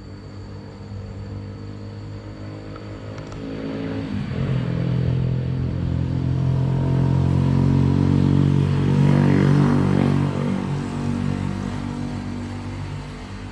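A motor vehicle engine passing close by: it grows louder over several seconds, peaks, then fades away.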